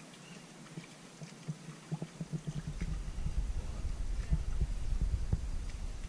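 Canoe being paddled: irregular low knocks and thumps of the paddles against the canoe's hull and the water, with a low rumble building from about two seconds in.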